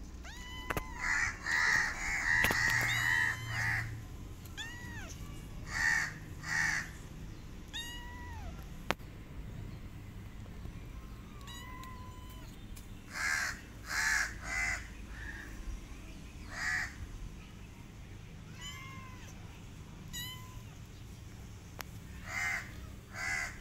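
Kitten mewing in short bouts of several calls, with quieter stretches between.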